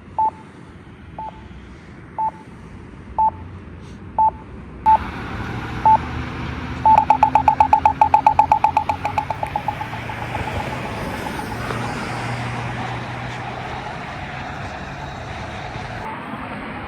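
Campbell accessible pedestrian signal push button sounding its locator beep about once a second. About seven seconds in it switches to a rapid run of ticks, about ten a second, the 'popcorn' sound that marks the walk phase, fading out after a couple of seconds, with traffic noise underneath.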